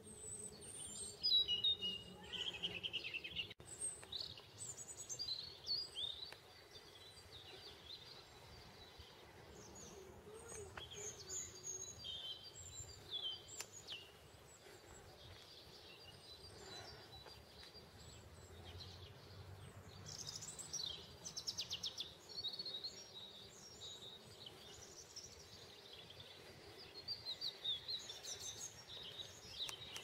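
Small songbirds singing and chirping, with many overlapping high-pitched calls and quick trills over a faint steady low hum. They are loudest about a second in, again around twenty seconds in, and near the end.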